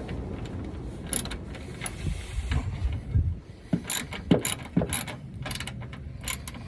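Socket ratchet wrench clicking in uneven strokes as the 13 mm side-step mounting bolts are tightened.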